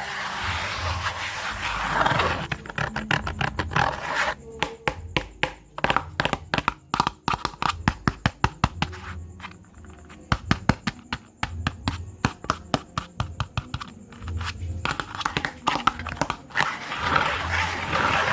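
A speaker playing a battle-sound track: scratch-like swishes at the start and end and a long run of sharp clicks in the middle, over blocks of deep bass notes.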